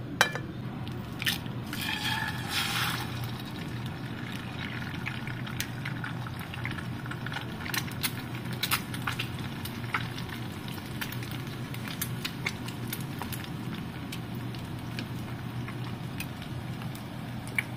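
An egg frying in a nonstick pan, sizzling with scattered pops and crackles over a steady low hum. A few sharper clicks come in the first few seconds.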